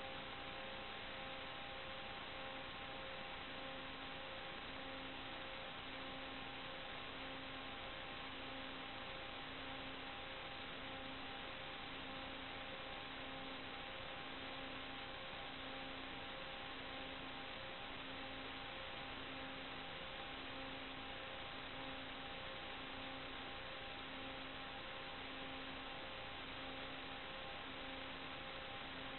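Steady electronic hiss with a faint hum of several fixed tones and a low tone pulsing about once a second, with no sound of the aircraft itself. This is the noise of an analog FPV video link's audio channel as recorded on the ground.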